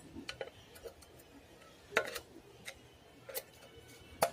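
Scattered light metal clicks and taps from long-nose pliers working a circlip on a scooter's kick-start shaft, the loudest about two seconds in and near the end.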